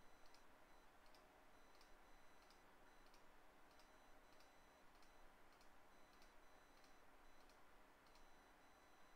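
Near silence: faint room tone and hiss, with faint, irregular high ticks scattered through it.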